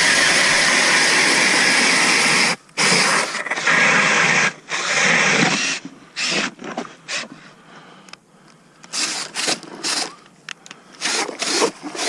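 Ryobi 18-volt cordless hammer drill spinning an ice auger bit through lake ice: a loud grinding run of about two and a half seconds, two shorter runs, then fainter stop-and-start bursts in the second half.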